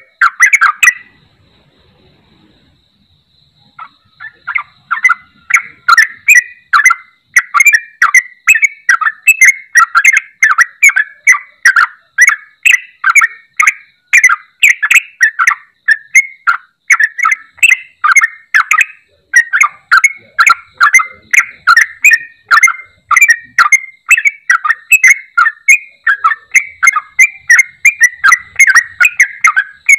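Yellow-vented bulbul (trucuk) singing in full voice: quick, bubbling chattering phrases, two or three a second. The song breaks off for about three seconds near the start, then runs on without a pause. It is the constant 'gacor' song that keepers play as a lure to set a silent caged trucuk singing again.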